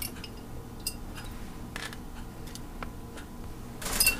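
A few faint, scattered clicks and taps from handling things on the stovetop, then a short burst of noise near the end.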